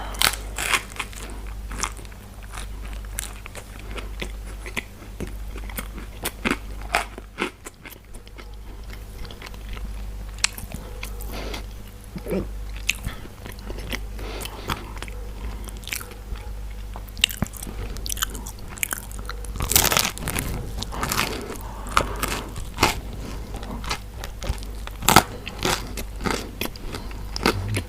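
Close-miked eating: crunchy bites and chewing, a rapid scatter of crisp cracks with a busier, louder stretch of crunching about two-thirds of the way through, over a faint low hum.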